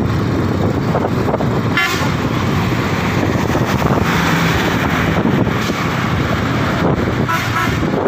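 Steady road and wind noise from a moving motorcycle, with a short vehicle horn toot about two seconds in and another near the end.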